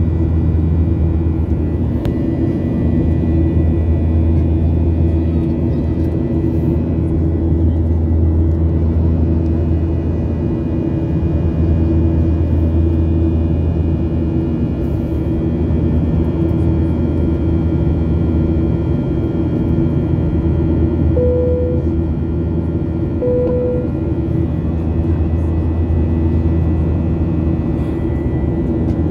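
Steady cabin drone of a jet airliner in flight, heard at a window seat next to the engine: a constant low hum with several steady tones over it. Near the end come two brief tones about two seconds apart.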